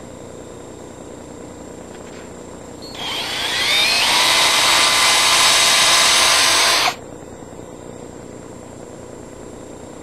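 Cordless drill spinning a long-shafted equine dental tool with a round rotary head. It starts about three seconds in with a rising whine, runs steadily for about four seconds, then stops abruptly.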